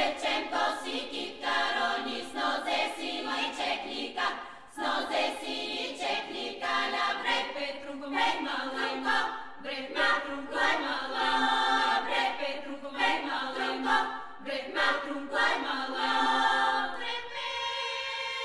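A choir singing a cappella in folk style, with many voices in close parts. Near the end the voices settle into long held notes.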